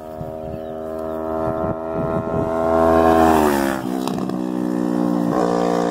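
Yamaha R3 motorcycle's parallel-twin engine through an M4 Street Slayer slip-on exhaust, riding past at steady throttle. The note builds as the bike approaches, drops in pitch as it passes about three and a half seconds in, then carries on as it pulls away, with a brief dip and rise in the note near the end.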